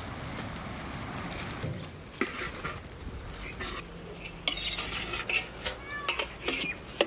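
Aluminium-foil food parcels crinkling and rustling as they are handled and set down, with scattered sharp crackles that come more often in the second half.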